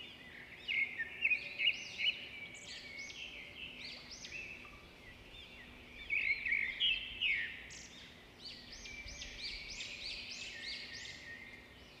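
Small birds chirping: many short, high-pitched, arching chirps overlapping one another, with a few louder ones about a second in and again around the middle.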